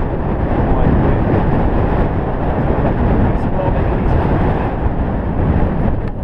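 Wind buffeting the microphone in a steady loud rush, over the rolling of longboard wheels on concrete as the board is pulled along at speed.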